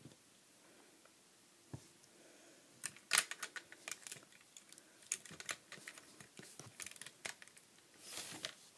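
Faint, irregular clicks and rattles of plastic Lego pieces as a hand handles and works the bumper of a brick-built truck model, the sharpest click about three seconds in.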